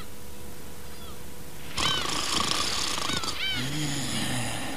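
Cartoon sound effects: a small bird chirping about once a second, then a long rushing breath and a low hummed tone, a sleeping creature's cartoon snore.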